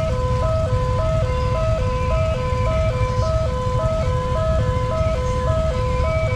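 Railway level-crossing warning siren sounding fast, flipping between two tones about every third of a second, warning that a train is coming. A steady low rumble runs beneath it.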